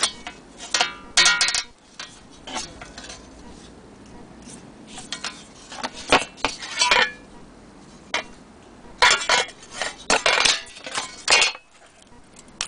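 Large corroded metal clock hands clinking and clattering against each other as they are handled. The clinks come in three groups, some with a short metallic ring.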